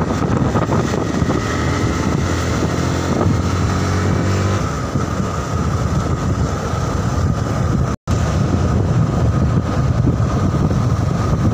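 Motorcycle engine running steadily while riding along, mixed with wind rushing over the microphone. The sound cuts out completely for an instant about eight seconds in.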